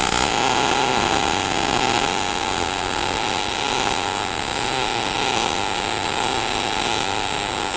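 MIG welding arc from an ESAB Rebel EMP 235ic in sMIG mode at 270 wire feed speed, laying a bead in a steel groove joint. The arc strikes right at the start and then burns with a steady, even crackle.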